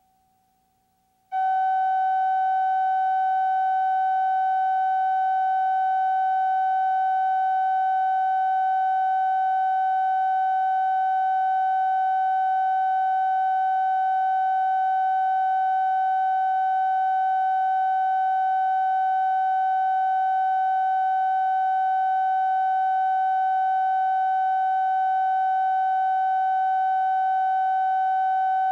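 Videotape line-up reference tone, the kind played with colour bars for setting audio levels: one unbroken steady pitch that switches on abruptly about a second in.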